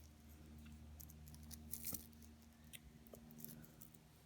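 Near silence: a steady low room hum with a few faint, scattered clicks and taps of small objects being handled, one slightly louder about two seconds in.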